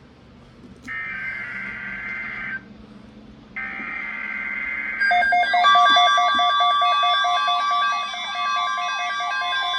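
Emergency Alert System SAME header: two bursts of high digital data tones, each about a second and a half, with a short gap between them. About five seconds in, a louder alert tone takes over, made of several held and pulsing pitches, heralding a new weather alert.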